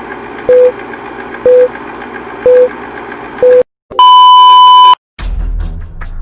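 Countdown-style beep sound effect: four short low beeps a second apart over a steady hiss, then one long, louder, higher beep about four seconds in. Music starts near the end.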